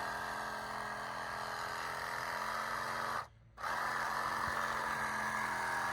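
Reciprocating saw with a thick pruning blade running steadily as it is pushed into a tree. It cuts out suddenly for about half a second just after the middle, then runs on.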